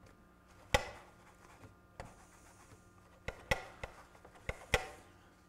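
Sharp, irregular clicks and clacks, about seven in all, from the metal levers of a BIC 960 turntable's auto-start/stop mechanism being worked by hand and snapping back on their springs. The mechanism is moving freely again after cleaning out gummed-up grease.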